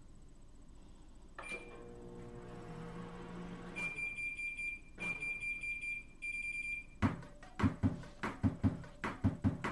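A microwave oven clicks on and hums, then sounds three long, high, steady beeps. About seven seconds in, a fast run of sharp thumps begins, like a drum beat.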